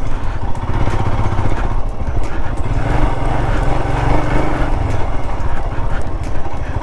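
Royal Enfield Himalayan's single-cylinder engine running at low speed under way, a steady low pulsing beat, heard from the rider's seat while riding a rough dirt track.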